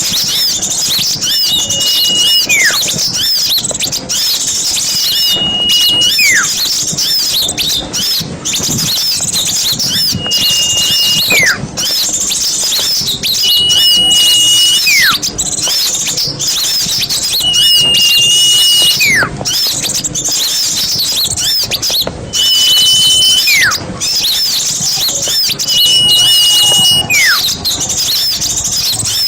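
Small songbirds chattering and twittering without a break. About every four seconds a clear whistle is held for about a second, then a downward-sliding whistle follows.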